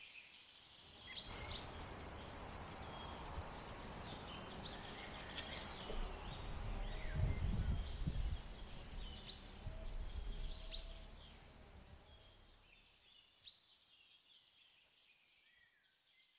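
Quiet outdoor ambience with small birds chirping again and again. A low rumble swells about six to nine seconds in, and the sound fades out near the end.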